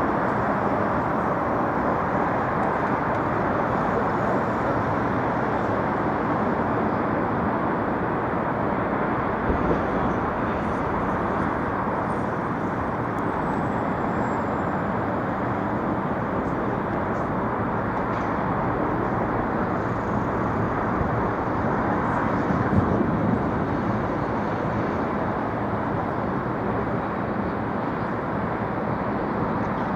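Steady outdoor city background noise, a continuous hum of traffic.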